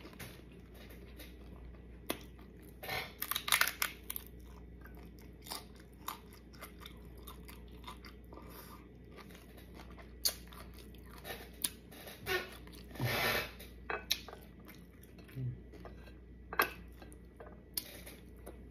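Someone eating tacos close to the microphone: irregular crunching bites and chewing, with a denser run of crunches about three seconds in and another about thirteen seconds in.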